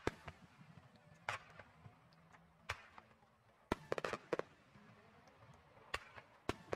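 Fireworks from a 12-inch aerial shell: a sharp bang, then scattered single cracks about a second or so apart, with a quick cluster of crackling reports about four seconds in and another near the end.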